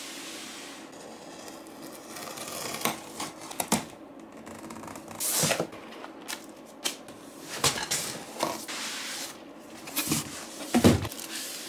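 A cardboard shipping box being opened and unpacked by hand: flaps folding back, a paper booklet and foam packing pulled out, with irregular rustles, scrapes and knocks and a louder thump near the end.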